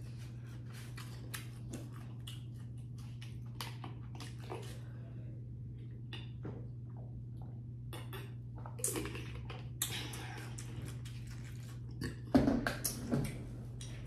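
Quiet room tone with a steady low hum and scattered light clicks and taps, then a few louder knocks in the last two seconds.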